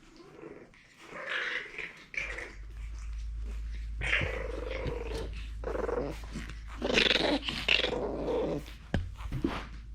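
French bulldog puppy growling in several short bouts, the longest and loudest about three quarters of the way through.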